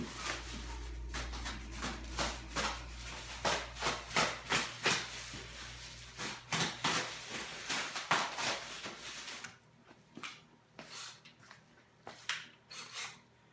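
Irregular knocks, clatters and rustles of a sewing machine's shipping packaging being handled and taken apart, busiest in the first nine seconds, then sparser.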